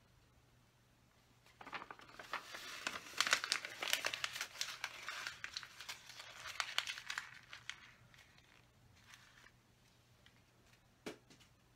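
A sheet of printed paper crumpled into a ball by hand: a burst of dense crackling and crinkling that lasts about six seconds, then a few lighter crinkles, and a single short click near the end.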